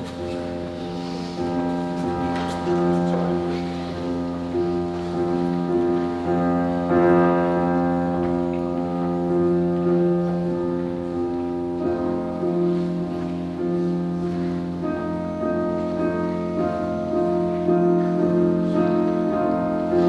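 Recorder ensemble playing an arrangement of a classical piece, several parts held together in sustained chords.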